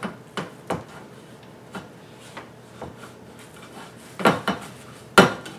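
Glass baking dish being wiped out by hand to get the grease off: a string of short clinks and knocks of the glass against the counter and sink, the loudest cluster about four seconds in and another sharp knock near the end, with soft rubbing between.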